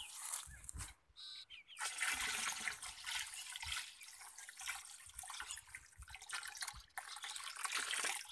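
Water being poured from a metal scoop into a plastic drum of liquid: a steady splashing that starts about two seconds in, breaks off briefly near the end, then carries on.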